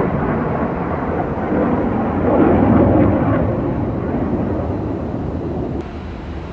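Aircraft passing overhead: loud engine noise that swells about two to three seconds in, then fades away.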